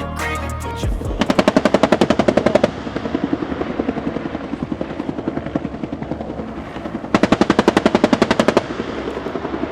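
Rapid machine-gun fire, about ten shots a second, in two loud bursts of about a second and a half each, with a quieter rattle of the same rapid fire between them.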